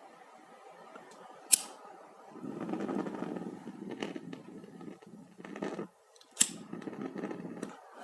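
Draught of air blowing out through a wall electrical socket, a gusting rushing noise that swells about two seconds in and again later. A few sharp clicks come in between. This draught is the noise he had taken for a computer power-supply fan speeding up under load.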